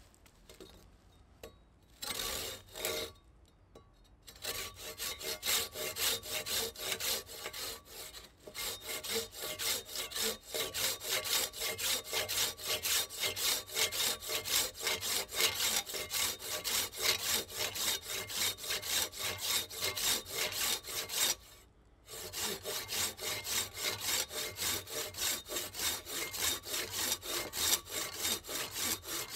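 Silky BigBoy folding saw cutting through a small log: a few starting strokes, then quick regular back-and-forth strokes, about three a second, broken by a short pause about 21 seconds in before the sawing resumes.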